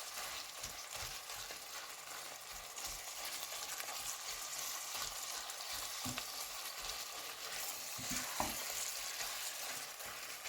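Ground meat frying with onions in oil in a saucepan, a steady sizzle, as a spoon stirs it with scattered light knocks against the pan, one sharper knock near the end.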